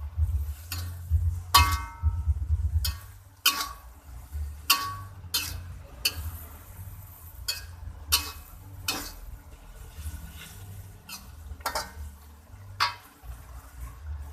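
A utensil stirring food in a cooking pan, knocking and scraping against it at irregular intervals, some knocks ringing briefly.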